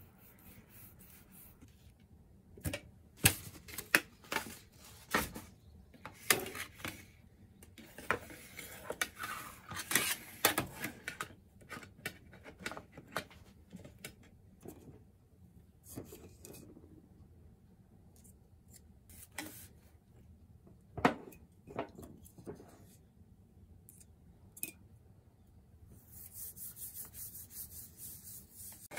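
Hands rubbing salt into raw tuna and salmon in a stainless steel tray: gritty scraping and rubbing, broken by irregular sharp clicks and taps against the metal tray.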